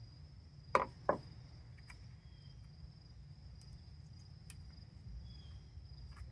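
Two sharp plastic clicks about a second in, then a few faint ticks, as a fuel pump module's plastic housing is pried apart with a small screwdriver and the pump is worked loose by hand. A steady high-pitched whine and a low rumble run underneath.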